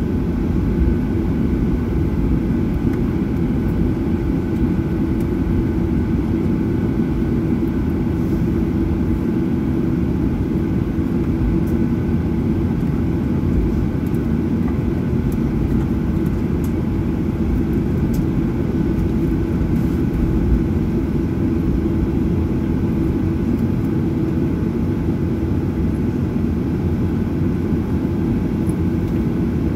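Steady cabin noise inside a Boeing 737-900ER on the ground after landing: the CFM56-7B engines at idle and the cabin air system, a constant low rumble with a steady hum.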